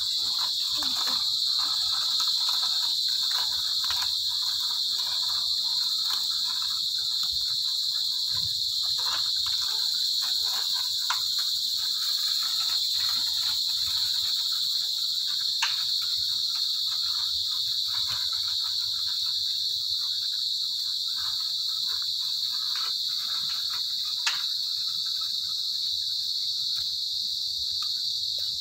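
A steady, high-pitched insect chorus that carries on unbroken, with a few faint scattered clicks.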